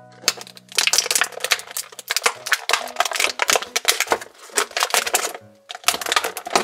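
Thin clear plastic bag crinkling and crackling in quick, irregular bursts as hands rummage through it and pull out small plastic toy figures.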